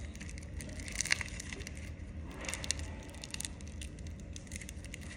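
Hands kneading and stretching Play-Doh Super Cloud slime packed with tiny foam beads, giving faint squishes and crackles, with a few sharper crackles about a second in and again a little after the middle.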